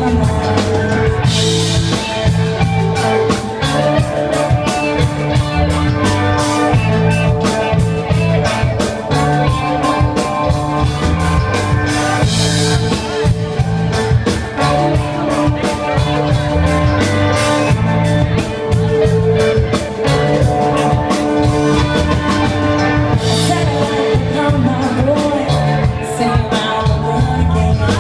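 Live rock band playing, with drum kit and guitar and some singing, in a steady beat.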